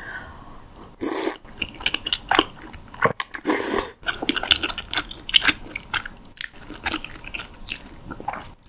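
Close-miked eating sounds: crunchy bites and wet chewing, with two louder crunches about a second in and around three and a half seconds in and many small clicks between.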